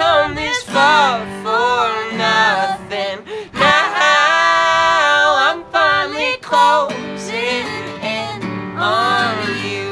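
A man and a woman singing a folk duet together over an acoustic guitar.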